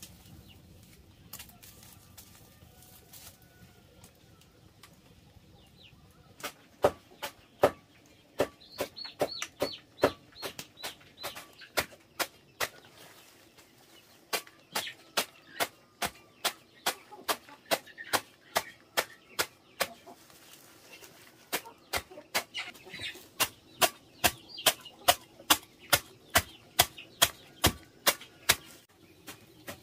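Chickens clucking, with a steady run of sharp knocks, about two a second, starting some six seconds in.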